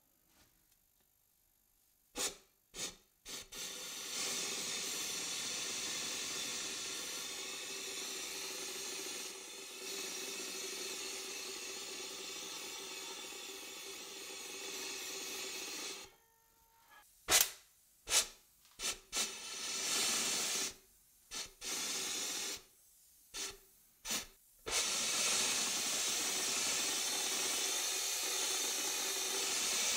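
Electrostatic powder coating gun spraying powder: a steady hiss of air and powder in two long stretches, with a faint steady hum under it. Before and between the stretches come a run of sharp clicks and short bursts of spray.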